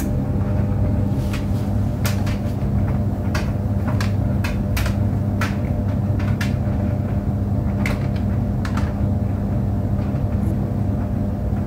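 Clothes dryer running: a steady low hum and drone, with irregular clicks and knocks from the load tumbling in the drum.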